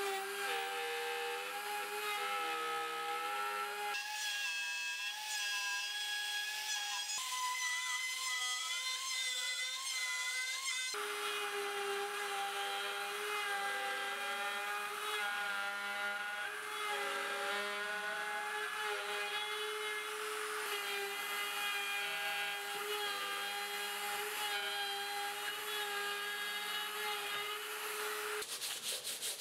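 Handheld rotary tool running at high speed in a homemade 3D router jig, its bit routing a square hole through birch plywood: a steady motor whine whose pitch wavers as the bit cuts.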